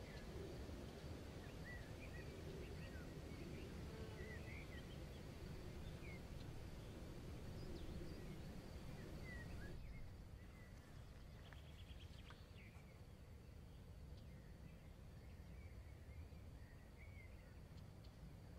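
Faint outdoor ambience: a low, steady rumble of background noise with small birds chirping now and then. The background noise drops a little about ten seconds in.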